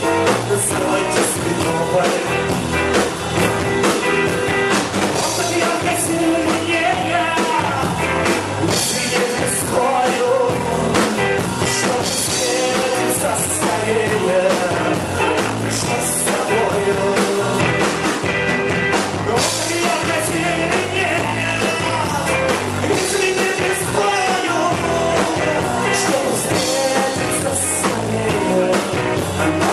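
Rock band playing a song steadily, with drum kit and guitar.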